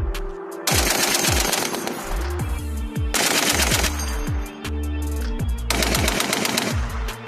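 Machine guns firing in bursts, three long bursts of rapid shots with short pauses between.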